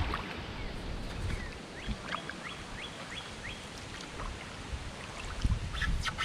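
Wind buffeting the microphone on an open canoe on a river, a steady rough rumble and hiss. In the middle a bird calls a quick run of about six short falling chirps, and near the end the rumble grows louder and more uneven.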